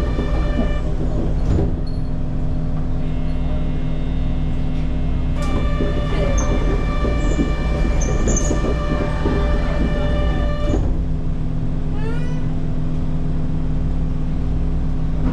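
Kyoto subway train running: a steady low rumble with whining tones that drop out about a second in, return for several seconds mid-way, and stop again, plus a few short rising squeals about twelve seconds in.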